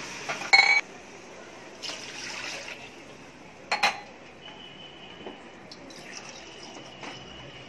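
Two sharp metal clanks of kitchen utensils against steel cookware, about half a second and about four seconds in. After the second, coconut milk is poured from a steel bowl into a cooking pot with a soft pouring sound.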